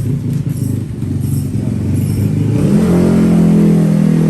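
Motorcycle engine running unevenly at low revs, then revved up a bit under three seconds in and held at high revs.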